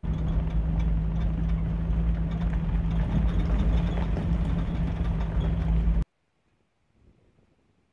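Jeep Wrangler's engine and road noise while driving on a dirt road, a loud steady drone with a strong low hum. It cuts off abruptly about six seconds in.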